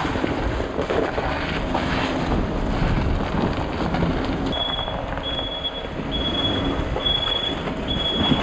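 Delivery van running, with steady rumbling vehicle and wind noise. About halfway in, a high electronic warning chime starts beeping evenly, a little over once a second.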